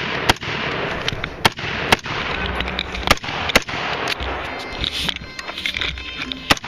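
Rifle gunshots during a carbine drill: about six sharp cracks at irregular intervals, over a steady rushing noise.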